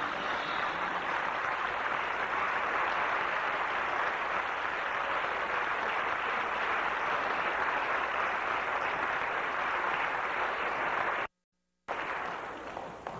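Audience applauding steadily. The sound drops out completely for about half a second near the end, then comes back and fades away.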